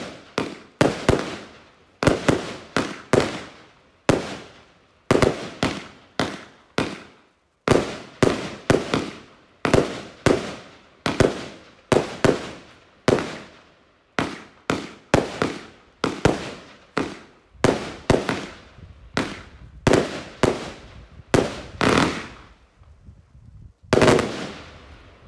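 A 25 mm, 81-shot consumer firework cake (battery) firing shot after shot, about one to two sharp bangs a second, each trailing off quickly, with a few brief gaps, and a last strong bang near the end.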